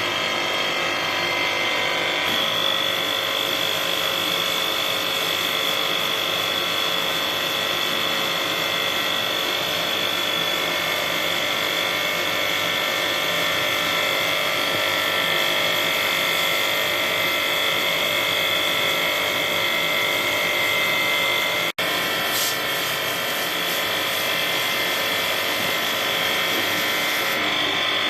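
A small electric motor running steadily with a high, multi-toned whine, cutting out for an instant about three quarters of the way through.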